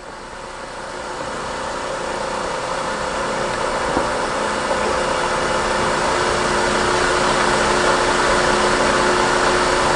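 Verteq 1600-55 spin rinse dryers spinning through their dry cycle: a steady whirring hum with a few faint steady tones, growing louder over the first several seconds and then holding.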